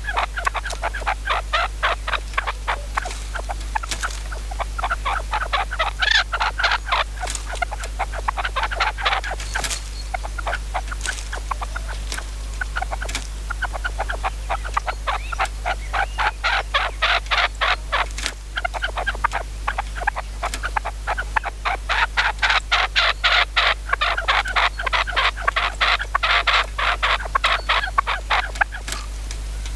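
Red-legged partridges calling: long runs of rapid, evenly spaced clucking notes that swell and fade, loudest in the last third.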